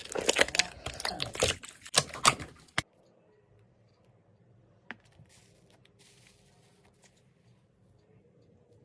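Slime being squeezed and pressed by hand, with dense rapid crackling and clicking for about three seconds. It then stops, leaving near silence with one faint click.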